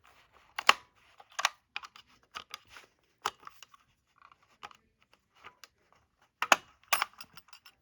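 Irregular plastic clicks and knocks from handling a smoke alarm and fitting its batteries, with a few sharper snaps about a second in and again near the end.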